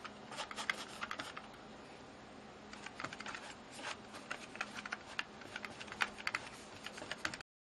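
Wide flat brush dabbing and scraping acrylic paint over a taped canvas: irregular dry clicks and scratches, a few a second, that cut off suddenly near the end.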